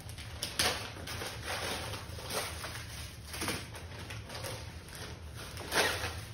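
Plastic packaging rustling and accessories being handled, in several short bursts. The loudest bursts come about half a second in and again near the end.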